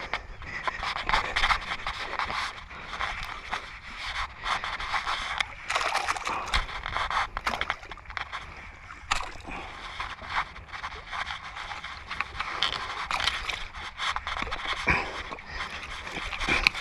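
A person breathing hard in uneven gasps, mixed with scrapes and sharp clicks, while fighting a hooked fish on a bent rod.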